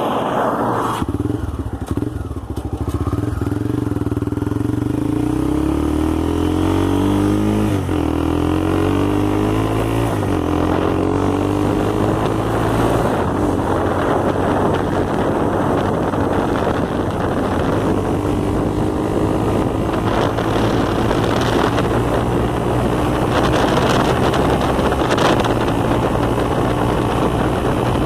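Motorcycle engine running, its pitch shifting up and down in the first ten seconds, then holding steady. It carries a strange noise that the owner traced to nothing worse than the exhaust.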